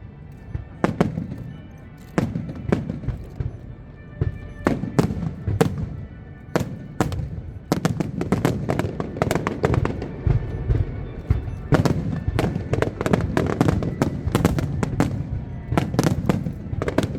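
Fireworks bursting: scattered sharp bangs at first, then from about eight seconds in a dense, rapid barrage of bangs and crackles.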